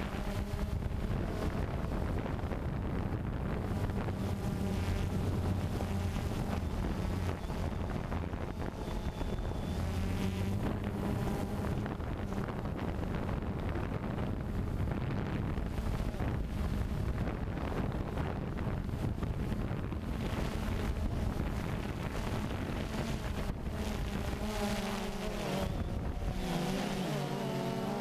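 DJI Phantom 2 quadcopter's motors and propellers buzzing steadily in flight, heard close up from the camera on board, mixed with wind on the microphone. Near the end the motor pitch shifts as the rotor speed changes.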